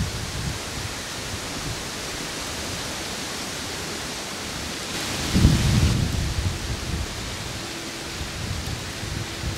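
Wind gusting through the treetops with low rumbling buffets on the microphone, the strongest gust about five seconds in.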